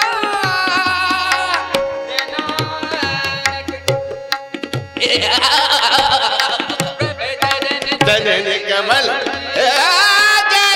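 Sikh shabad kirtan: harmoniums playing a sustained drone and melody, tabla keeping the rhythm with deep bass-drum strokes, and male voices singing the hymn. The singing swells fuller about halfway through.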